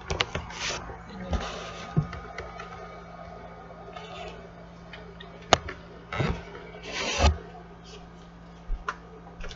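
Rustling and a few sharp knocks and clicks as someone moves about the room close to the microphone, over a low steady hum.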